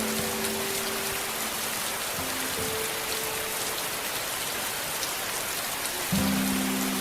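Steady rain hiss with soft, slow ambient music of long held notes over it; a louder low chord comes in about six seconds in.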